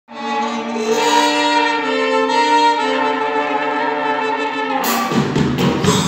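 Instrumental intro of a live band: a melody in long held notes, then about five seconds in the drums and the full band come in.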